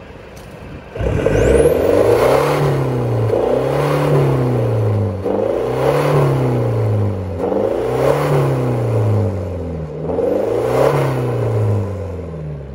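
Isuzu pickup's 2.5-litre twin-turbo intercooled diesel engine revved five times in a row through its dual-tip exhaust, each rev rising and falling, about every two seconds, starting about a second in.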